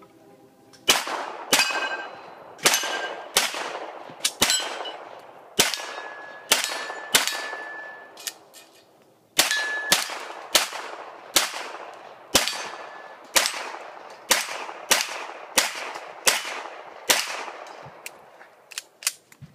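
Pistol fired in rapid strings of roughly two dozen shots, about one every half second, with a pause of about a second near the middle. Several shots are followed by the clang and ringing of hit steel plates.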